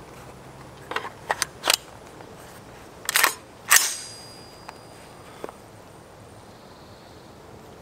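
Metal clicks and clacks of an AR-15 being readied. A quick run of light clicks comes about a second in, as the adjustable gas block is turned to a new setting. Two louder clacks follow around three seconds in, the second ringing briefly, as a magazine is seated and a round chambered, with two faint clicks after.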